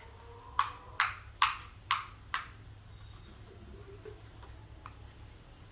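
A spoon knocking against a bowl: five sharp taps about two a second, then a few faint ticks.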